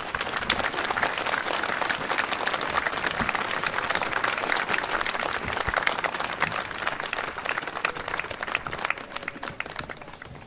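Crowd applauding, many hands clapping together, dying away near the end.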